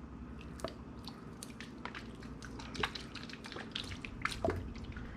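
Bottled sauce, soy or teriyaki, being poured and dripping onto shredded chicken and broccoli slaw in a bowl: scattered small wet ticks and drips.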